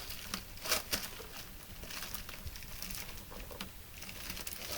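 Packaging rustling and crinkling, with scattered light clicks and knocks of handling.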